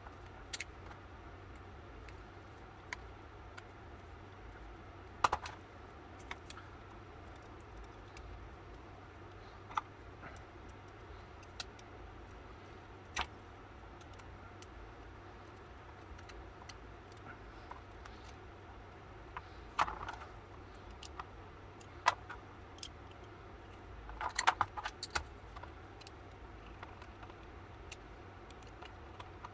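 Scattered sharp clicks and taps of small metal parts and tools being handled on a workbench, a few louder knocks and a short cluster of clinks near the end, over a faint steady hum.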